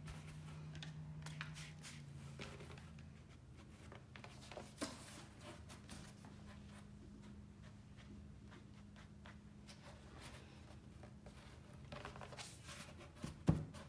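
Quiet handling noise of a watercolor board being lifted, tilted and set back on a towel-covered table: light scuffs and taps, with a sharper knock near the end, over a steady low hum.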